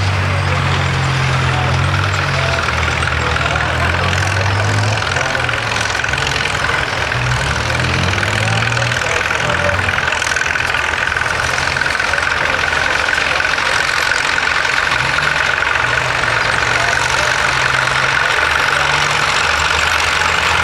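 An engine running steadily with a low hum that shifts a little in pitch.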